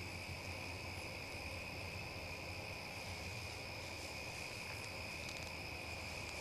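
Steady chorus of crickets, a continuous high-pitched trill that does not vary.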